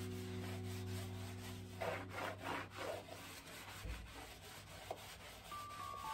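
Hand scrubbing of a wet, soapy tiled floor with a hand scrubber: a quick run of rasping strokes about two seconds in, with softer rubbing around it. Background music with held notes fades out early and comes back near the end.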